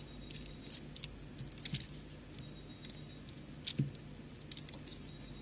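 Beads being picked up and strung: a few sharp, light clicks of beads knocking together, with the loudest about a second and a half in and another near four seconds, over a low steady hum.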